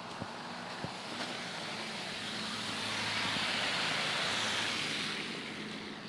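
A car drives past on a snowy street: its tyre hiss swells over a few seconds, peaks in the middle and fades away near the end, over a faint low engine hum.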